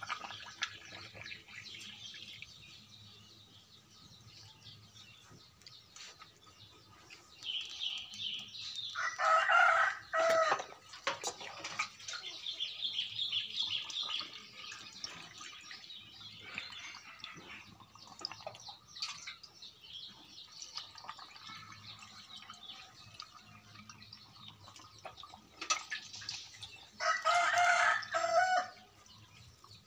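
A rooster crowing twice, each crow about a second and a half long: once about nine seconds in and again near the end.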